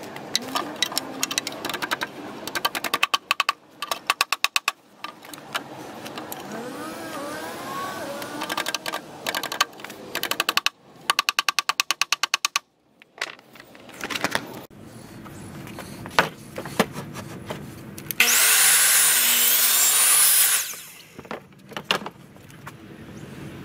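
Woodworking build sounds: fast runs of rattling clicks and separate sharp knocks as hardware is hammered into the timber frame, then a power saw cutting through a plywood board for about two seconds, its motor giving a high whine.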